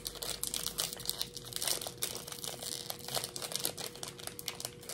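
Plastic snack packet crinkling in many quick, irregular crackles as it is handled and opened.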